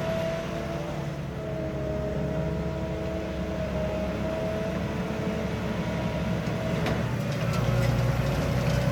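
Grimme Varitron 270 potato harvester running steadily as it lifts potatoes: engine drone and the rumble of its conveyors, with a steady whine over it. The low rumble grows louder near the end.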